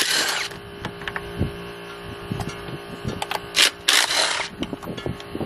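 Metal tools clicking and knocking against an engine as it is unbolted for teardown, over a steady hum, with two short bursts of hiss, one at the start and one about four seconds in.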